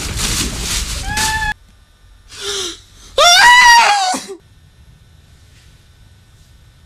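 A man's sharp gasping breath, then a short, loud scream rising in pitch about three seconds in, as he jolts awake in bed. Before it, a loud rushing noise with repeated short cries cuts off abruptly about a second and a half in.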